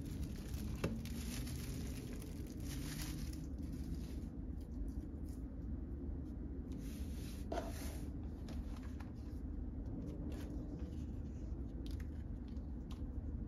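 Crinkling of a clear plastic bag and rustling, sliding and soft taps of a cardboard album and photobook being handled, in short irregular bursts over a steady low background hum.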